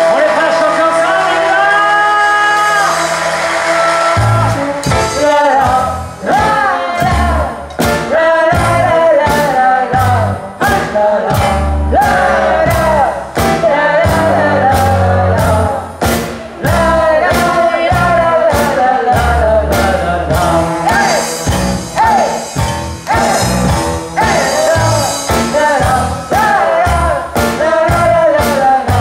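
Live band playing a song with singing: held chords for about the first four seconds, then drums and bass come in with a steady beat.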